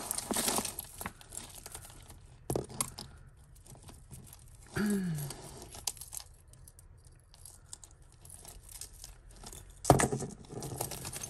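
Tangled costume jewellery (metal chains, faux pearl strands and beads) jangling and clinking as it is picked apart by hand, with scattered sharp clicks and the loudest clink a little before the end.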